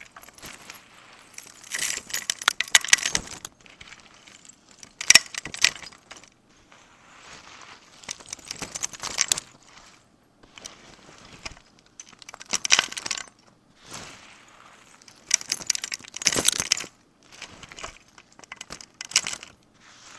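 Several separate bursts of clattering from small hard objects, each a second or two long, with short quieter gaps between them.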